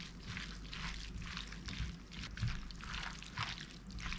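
A gloved hand tossing and squeezing julienned onion and peppers in an oily dressing in a glass bowl: irregular wet squishing and rustling, several strokes a second.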